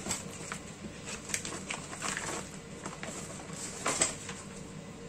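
A clear plastic zip bag rustling as it is handled and a small cardboard sleeve is pulled out of it, with scattered light clicks and taps; the sharpest comes about four seconds in.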